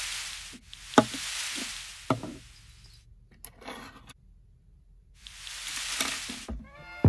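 Bottles and small jars set down on a wooden desktop, a few sharp knocks, among several whooshing sweeps of noise about a second long each.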